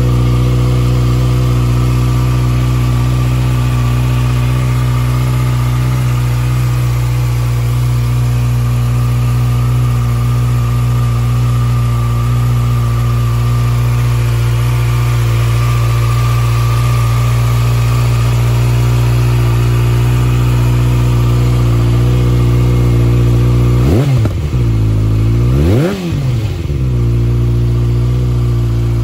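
2021 Kawasaki Ninja ZX-6R's inline-four engine idling steadily through an SC-Project aftermarket muffler. Near the end it is revved twice in quick succession, the pitch rising and falling each time.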